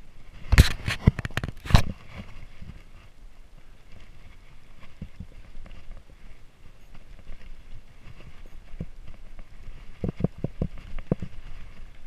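Mountain bike ridden over a dirt trail: a quick run of sharp knocks and rattles from the bike jolting over bumps in the first two seconds, a steady low rumble of the tyres on dirt, then another run of knocks about ten seconds in.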